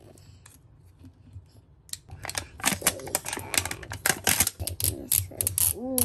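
Thin plastic wrapper of a Mini Brands capsule ball crinkling and crackling as it is pulled off and scrunched by hand, in quick dense rustles from about two seconds in; before that, only faint rustling as the tear strip is peeled.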